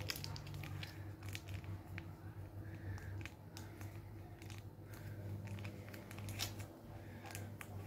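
A small plastic sachet crinkling and crackling in the hands as it is squeezed out, in soft irregular clicks, over a steady low hum.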